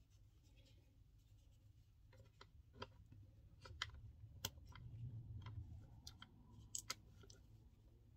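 Faint handling noise as hands work macrame cord on a wooden table, with scattered small clicks and taps, a few sharper ones between about four and seven seconds in.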